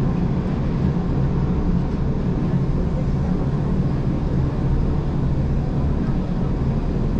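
Gornergrat Bahn electric rack-railway train running downhill, a steady low rumble.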